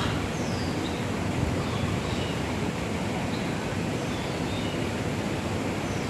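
Steady low outdoor background noise, with a few faint, short, high bird chirps scattered through it.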